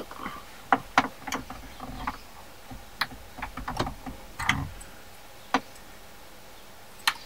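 Small plastic clicks and knocks of an electrical connector being unlatched and pulled off a BMW X5 E53's electronic accelerator pedal. An irregular run of clicks goes on for about four and a half seconds, then two single clicks follow.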